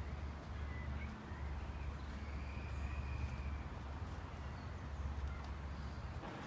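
Outdoor ambience: a steady low rumble, with a few faint, thin bird calls in the first half.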